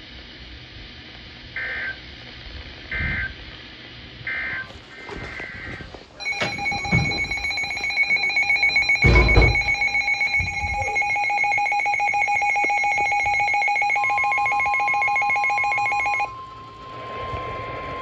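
Weather alert radio receiving an Emergency Alert System warning. Three short SAME data bursts come about a second and a half apart, then the receiver's alarm rings as a loud, fast-pulsing multi-tone beep for about ten seconds, with one dull thump partway through. Near the end a single steady alert tone takes over.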